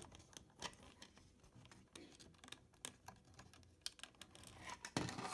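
Faint, scattered clicks and taps of small plastic toy parts being handled as the drive roller is worked out of the elevator lift of a 1970 Hot Wheels Tune-Up Tower, with a short run of clicks near the end.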